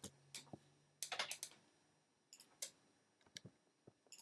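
Faint computer keyboard typing: irregular keystrokes, with a quick run of them about a second in and scattered taps after.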